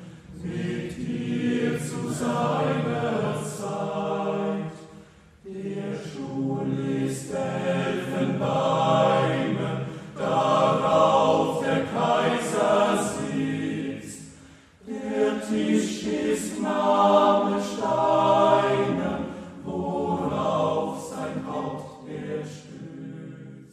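Choir singing slowly in long held chords, in three long phrases with short pauses about five and fifteen seconds in, fading out at the close.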